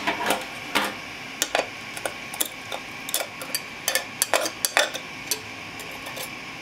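Thin metal scraper clicking and scraping against a delta 3D printer's glass bed as it prises a freshly printed part loose: a string of irregular sharp clicks and short scrapes.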